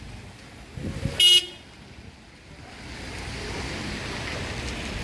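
A car horn gives one short toot about a second in, over a steady hiss of rain and traffic.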